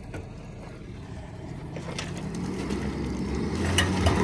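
Pickup truck engine pulling harder, its sound building from about two seconds in, as the truck tries to drag a loaded gravel dump trailer in four-wheel drive while struggling for traction on loose dirt.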